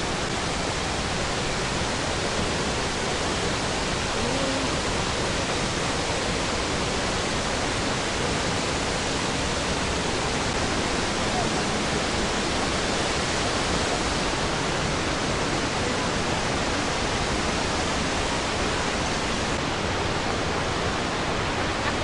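Steady rush of falling water from the Iguazu Falls' cascades, an even noise that holds constant throughout.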